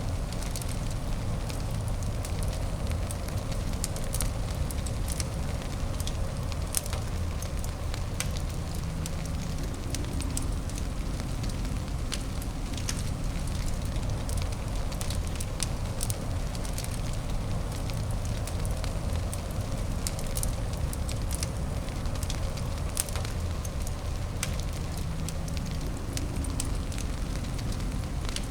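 Fireplace fire crackling: many sharp pops and snaps scattered irregularly over a steady low rumble and hiss.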